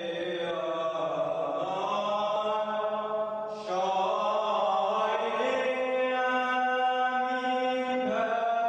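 Slow chant of long, held vocal notes over a low steady drone, moving to a new note about three and a half seconds in and again near the end.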